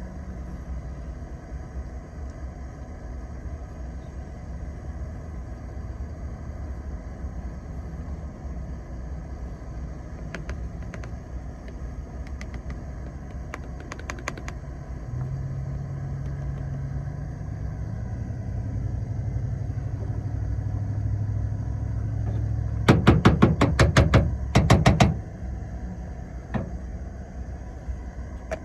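A low, steady vehicle-engine rumble, with an engine hum building from about halfway through. Near the end, about two seconds of loud, rapid clattering knocks.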